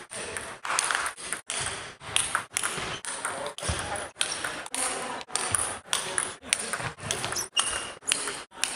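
A rapid string of short table tennis clips spliced together: ball clicks off paddles and the table in a large hall, cut off abruptly every fraction of a second.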